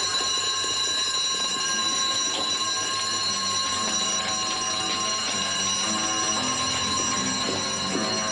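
Electric alarm bell with a red metal gong, its striker hammering continuously to give a steady, loud ringing that starts suddenly: an alarm being raised.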